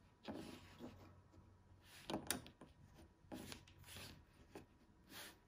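Faint handling noise of knives being nudged and slid across a plastic cutting mat: several short rubs, with one sharp light tap a little over two seconds in.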